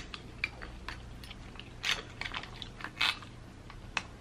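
Close-miked eating sounds: crab shell being picked apart and cracked by hand, with chewing. The sound is a run of short, sharp clicks and crackles, with louder ones about two and three seconds in and a last one near the end.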